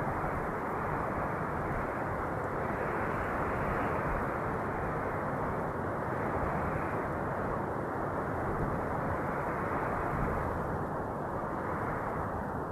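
Steady wind blowing: an even, dull noise with slow gentle swells and dips, turning slightly duller near the end.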